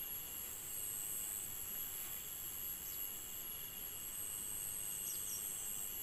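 Steady high-pitched trilling of field insects: several constant tones at once, one of which grows stronger twice for a second or so, with a few faint short chirps.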